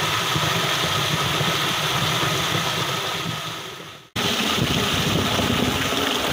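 Tubewell water rushing over a drop into a concrete irrigation channel, with the pump's diesel engine running steadily underneath. The sound breaks off for an instant about four seconds in, then resumes.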